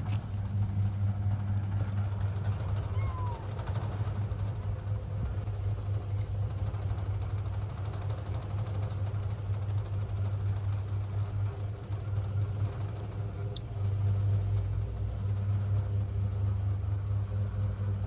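A steady low hum throughout, with a faint kitten mew about three seconds in.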